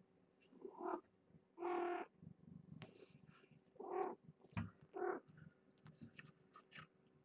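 Domestic cat calling in four short meows, the one about two seconds in longest and loudest, over a low purr. A bump about halfway through as the cat brushes close to the microphone.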